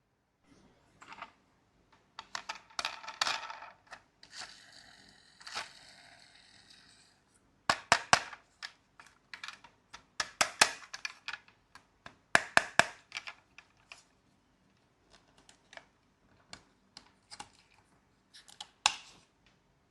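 Marbles running down a marble run: a few seconds of rolling and scraping along the track, then bursts of sharp clacks as marbles drop and knock against the track pieces and each other.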